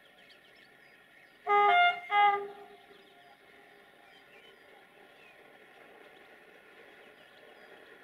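Electric locomotive horn, two short blasts about half a second apart, each a chord of steady notes, the second trailing off in a short echo, over the faint rumble of the approaching train.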